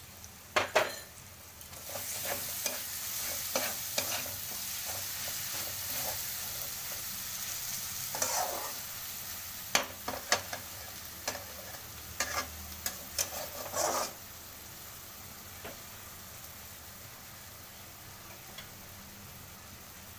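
Green chili paste frying in oil with ginger-garlic paste in a cooking pan, sizzling as it is stirred, with repeated scrapes and knocks of the stirring spoon against the pan. About fourteen seconds in, the stirring stops and the sizzle settles to a fainter steady hiss.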